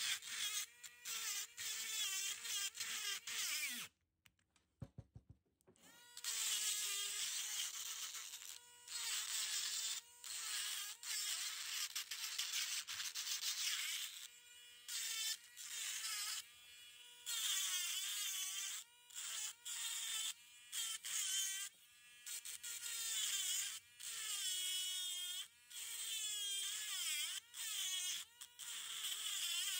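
Dremel rotary tool whining at high speed as its bit grinds into fossil shell rock, the pitch dipping each time the bit bites and recovering as it eases off, in repeated short bursts. About four seconds in it cuts out for about two seconds.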